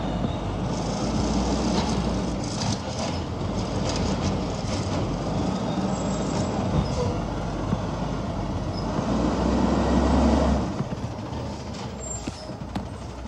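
Garbage truck's diesel engine running with a steady low rumble, rising louder twice, once about a second in and again near the end, as the truck works and pulls forward.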